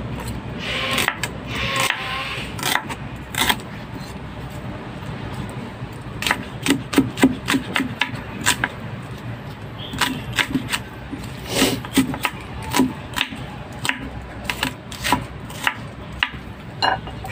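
Kitchen knife chopping shallots and garlic on a wooden chopping board: sharp, irregular knocks of the blade striking the board, coming in quick runs of several a second.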